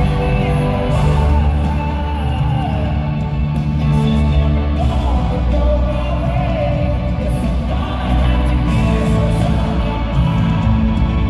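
Live rock band in full play, with a male lead singer singing over heavy bass and drums.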